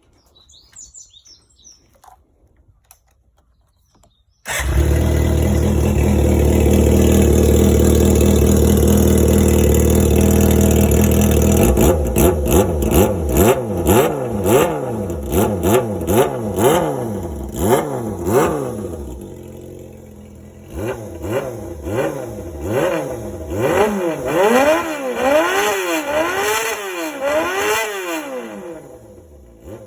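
Suzuki GF250 four-cylinder motorcycle engine, breathing through a nearly open aftermarket silencer, starts up suddenly about four seconds in and runs at a loud, steady fast idle. From about twelve seconds on it is revved again and again, the pitch rising and falling with each blip of the throttle, until the sound drops away near the end.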